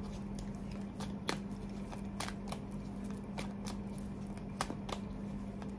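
Tarot cards being shuffled by hand: a scatter of short, irregular card clicks and flicks over a steady low hum.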